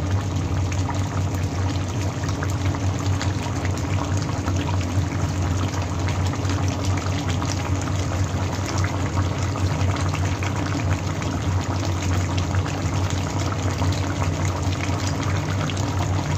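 Chicken kaldereta stew bubbling and simmering in a pan, a dense steady crackle of small popping bubbles as the sauce cooks down, over a steady low hum.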